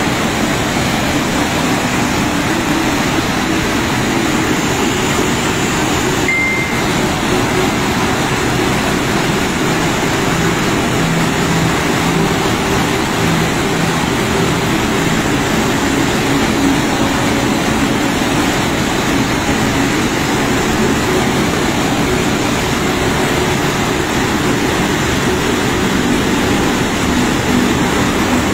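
Muddy flash-flood torrent rushing down a steep hillside, a loud, steady roar of churning water.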